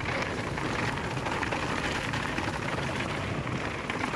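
Mountain bike descending a hardpacked dirt trail at speed: tyres rolling over the dirt and wind rushing over the bike-mounted camera's microphone, a steady rushing noise.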